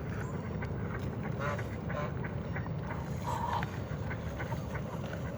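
Waterfowl calling at night: several short calls about one and a half, two and three and a half seconds in, over a steady low rumble. The uploader guesses these are hunger calls.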